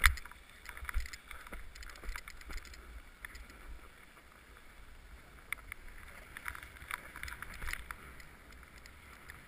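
Snowboard sliding and scraping over packed snow, a steady hiss with low wind rumble on the microphone. A sharp knock comes right at the start, and smaller clicks are scattered through.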